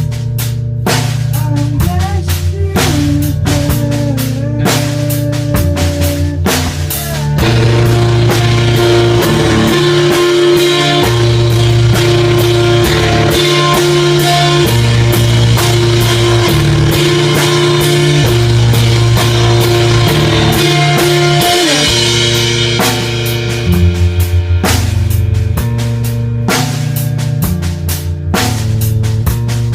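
Rock music with drum kit, bass and guitar. From about seven seconds in the music gets fuller, with steady cymbals and a held lead line, then it drops back to drums and bass at about twenty-two seconds.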